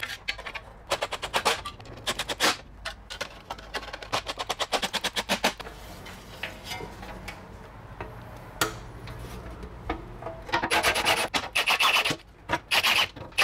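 Cordless impact wrench rattling in short bursts as it runs 8 mm heat-shield bolts, with a longer, louder burst near the end.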